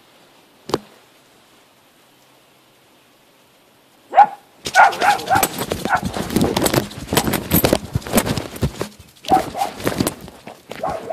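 Dogs barking in short, rapid calls mixed with scuffling and clattering, starting suddenly about four seconds in after a single click.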